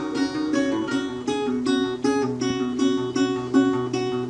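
Acoustic guitar picking out a song intro: single plucked notes in a steady repeating pattern, about three a second, over a sustained low bass note.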